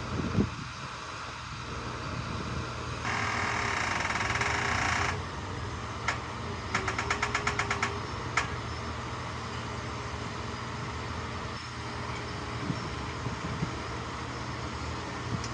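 A heavy machine's engine running steadily, with a loud hiss lasting about two seconds three seconds in, then a quick run of sharp clicks a few seconds later.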